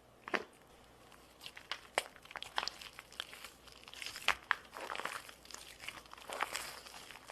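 Slime being played with, making irregular sticky clicks and crackles that grow busier after the first second or so.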